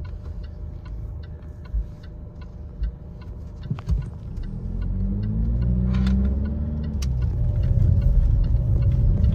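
Inside a car: the turn-signal indicator ticks about twice a second over a low road rumble, with a few low bumps. About halfway through, the engine pulls away, its note rising, then levelling off into a steady, louder drone.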